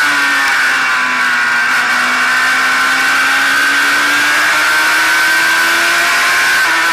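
Race car engine heard on board at racing speed over wind and road noise. Its note sags about a second in, climbs steadily for several seconds, then dips and picks up again near the end, following the throttle through the turn and down the straight.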